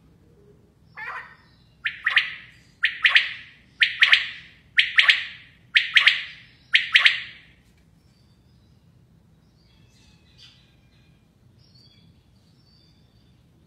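Caged common quail calling: a soft note, then six loud, sharp double-note calls about a second apart, followed by a few faint high chirps.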